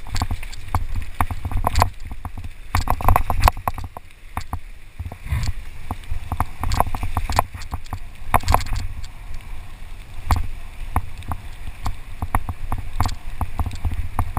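Mountain bike riding fast down a rough, rocky dirt trail: the bike rattles and knocks irregularly over the bumps, over a steady low rumble of wind on the microphone.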